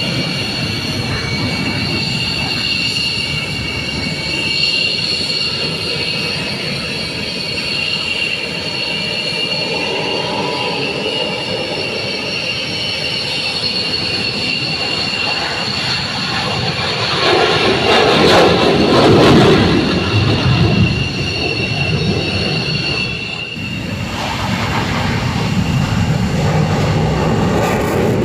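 Military jet engines running on an airfield with a steady high-pitched whine, swelling to a louder rush for a few seconds past the middle. Near the end the sound changes abruptly.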